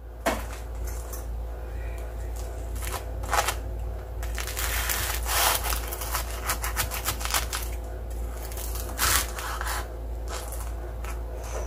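Kitchen knife cutting through a breaded, fried bread triangle on a wooden cutting board: the crisp crust crunches and crackles in a string of sharp crackles and short rasps, over a steady low hum.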